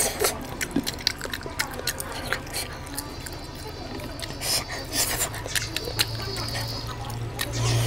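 Close-miked wet chewing and lip-smacking of oily curry and rice: many quick, irregular clicks and squelches over a steady low hum.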